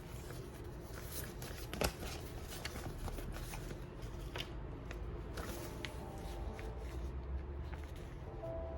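Paper and stationery being handled while making a journal: rustling with light clicks and taps, one sharper tap a little under two seconds in.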